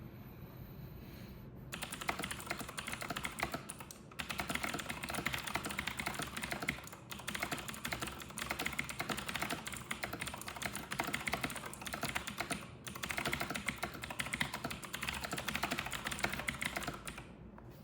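Fast, continuous typing on a Razer BlackWidow V4 Pro mechanical keyboard with Razer Green clicky switches: a dense stream of sharp key clicks at about 117 words a minute. It starts about two seconds in, has a few brief pauses, and stops near the end.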